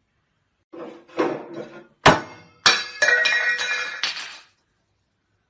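Hard objects clattering: a sharp knock about two seconds in, another soon after, then clinking and ringing that die away a couple of seconds later.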